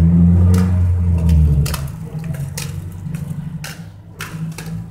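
Inline skate wheels rolling on a concrete floor close by: a low rumble that is loudest in the first second and a half and then fades, with scattered clicks and knocks as the skates strike the ground during gliding strides.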